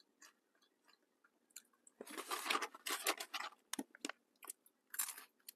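Crispy French fries being bitten and chewed close to the microphone: a dense run of crunching about two seconds in, then a few short crunches near the end.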